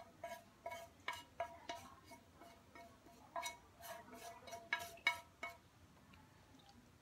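A utensil clinking and scraping against a metal frying pan as cooked food is scraped out of it onto a plate: a quick, irregular run of sharp ringing clinks that stops about five and a half seconds in.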